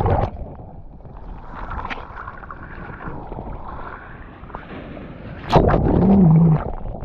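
Seawater sloshing and splashing close by, with a louder rush of water about five and a half seconds in that lasts about a second.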